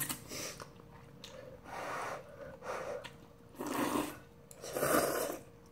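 Instant ramen noodles being slurped from chopsticks, about five noisy slurps with the last two the loudest.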